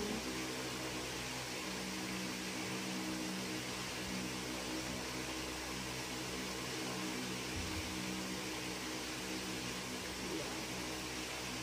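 Electric fan running steadily: a low motor hum under an even rush of air.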